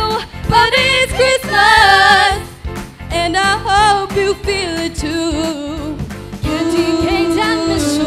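Three young female singers singing into handheld microphones through a sound system, with long held notes that waver in pitch.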